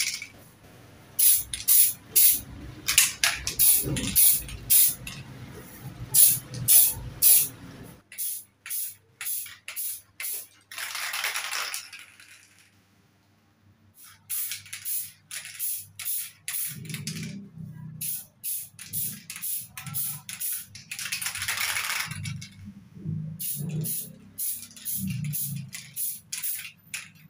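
Aerosol spray-paint can (Pylox) spraying paint onto an overlock machine in many short hissing bursts, with a couple of longer sprays about halfway through and again near the end, and a brief pause in between.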